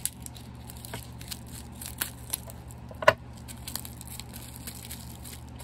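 A small wrapped item being unwrapped by hand: wrapping crinkles and tears in short scattered rustles, with one sharper click about three seconds in.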